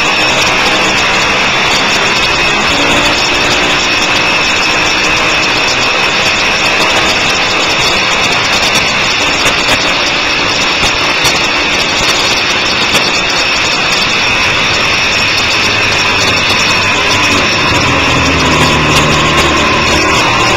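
Sport motorcycle engine running hard at speed, its pitch rising and falling through the corners, under a heavy rush of wind over the onboard microphone.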